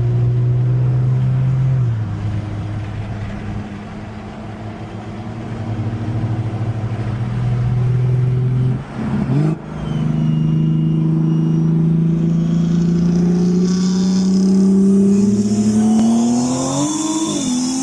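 BMW car engine pulling hard under acceleration in a roll race. Its pitch climbs steadily through a long gear over the second half, with a brief break in the sound about halfway and a quick gear change near the end.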